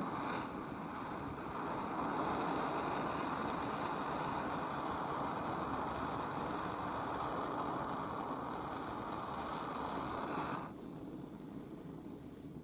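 Handheld butane torch flame running with a steady hiss while heating brass for sweat soldering; it drops away near the end.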